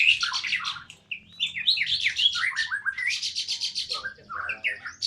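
Several songbirds chirping and singing together in a noisy chorus: rapid high trills, a short lull about a second in, then falling whistled notes and more fast chirping.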